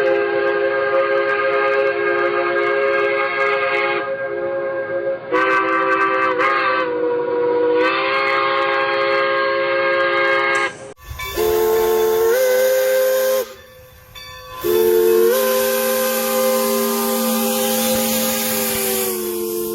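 Steam whistle blowing long blasts, several steady tones sounding together as a chord over a hiss of steam. The pitch dips and steps back up a few times as the valve is worked, with a brief break about two-thirds of the way through.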